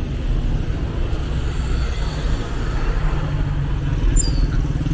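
Busy city street traffic: car and motorcycle engines running with tyre noise, a steady low rumble. A brief high squeak comes about four seconds in.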